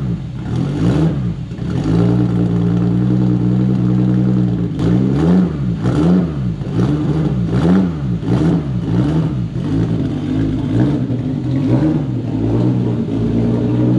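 Car engine revving: it holds high revs for a couple of seconds, then is blipped up and down over and over, roughly one rise and fall every half to two-thirds of a second.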